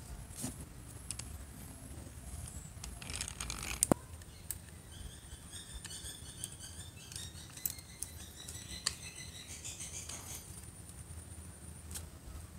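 Small metal clicks and rattles from a restored Miller Falls hand drill being handled as a twist bit is set in its knurled chuck, with one sharp click about four seconds in.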